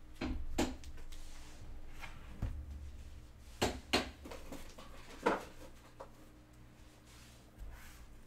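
Trading cards and card boxes being handled on a tabletop: a handful of light knocks and clicks spaced irregularly over several seconds, with brief soft rustling between them.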